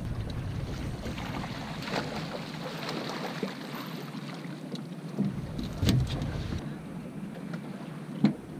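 Wind buffeting the microphone over water noise in an open boat, with several knocks on the hull as a blue catfish is netted and brought aboard; the sharpest knock comes near the end.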